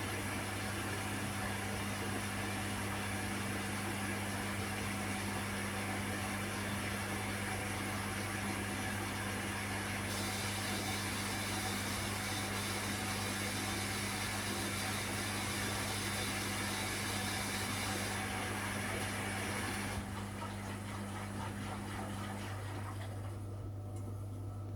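Electrolux EW1057F washing machine running in its interim spin: a steady mechanical whir over a constant low hum. About 20 seconds in the noise drops as the spin winds down, and the low hum carries on to the end.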